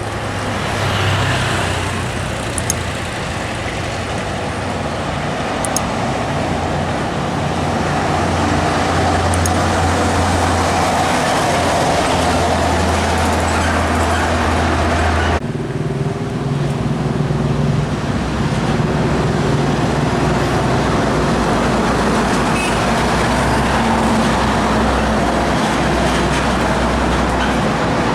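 Large trucks passing on a road: engines running with a low steady drone and tyre and traffic noise. About fifteen seconds in, the sound cuts abruptly to another passing truck.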